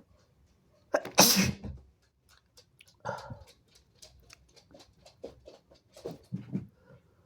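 A person sneezing hard about a second in, the loudest sound, followed by two shorter, quieter bursts of breath near three and six seconds.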